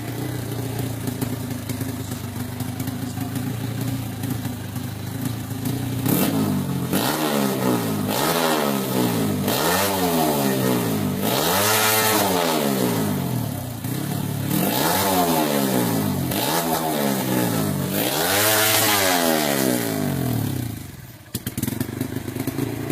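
Motorcycle with an aftermarket exhaust pipe idling, then revved about seven times in a row, each blip of the throttle rising and falling in pitch. It drops away briefly about 21 seconds in and then settles back to idle.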